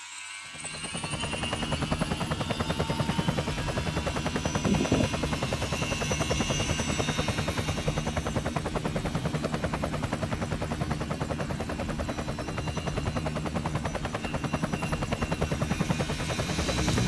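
Small RC model helicopter (Walkera Dragonfly 4F200LM) in flight, starting up about half a second in. Its rotor gives a fast, even chop over a steady high motor whine.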